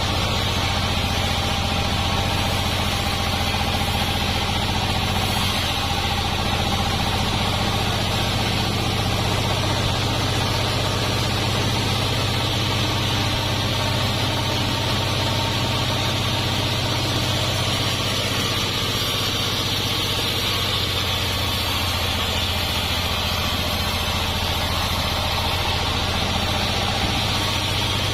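A sawmill's engine running steadily at an even speed, with no change in load.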